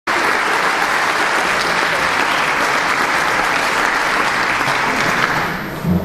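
Audience applauding, the clapping fading away near the end.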